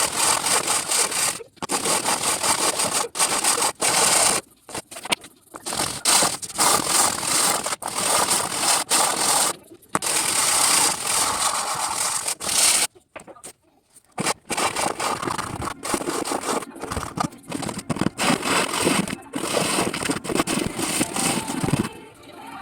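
Sanding cedar keychains: a steady scraping of abrasive on the wood that stops and starts several times, with a longer pause a little past the middle.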